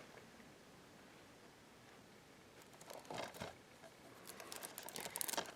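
Faint rustling and light clicks of a plastic DVD case being handled and turned over in the hands, starting about three seconds in after near silence.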